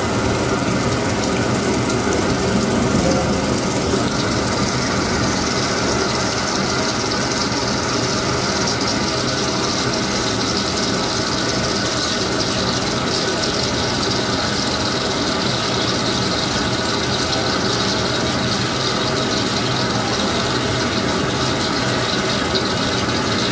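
CNC machine running steadily as a U drill (indexable insert drill) cuts into the workpiece: a continuous mechanical hum with a higher cutting hiss that builds a few seconds in.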